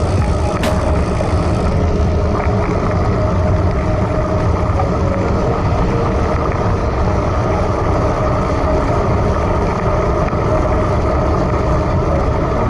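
Steady wind rush and tyre noise picked up by a handlebar-mounted camera on a road bike riding at about 20 km/h over wet asphalt, with a deep rumble from wind on the microphone. A single sharp click about half a second in.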